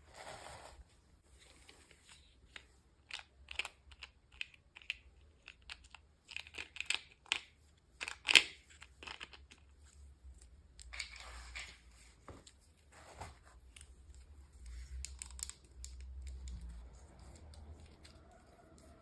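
Packaging being opened by hand: a wrapper crinkling and tearing, with irregular sharp clicks and taps of small plastic parts. The loudest click comes about eight seconds in.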